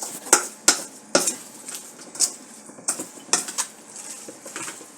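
Spoon stirring vegetables in a cooking pot, clinking against the pot several times at irregular intervals.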